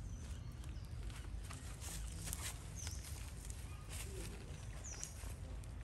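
Outdoor ambience: a steady low rumble with scattered clicks and rustles, and a few short, high-pitched chirps about three and five seconds in.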